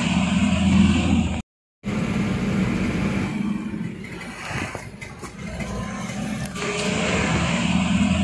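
Vehicle engine running, heard from inside the cabin, with a steady low rumble. The sound cuts out completely for a moment about one and a half seconds in, fades quieter in the middle and swells louder again near the end.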